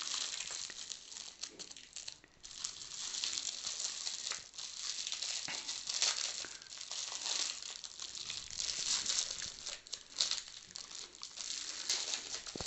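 Shiny metallic gift wrap crinkling and crackling as it is unwrapped by hand, a rapid run of small crackles with a brief pause about two seconds in.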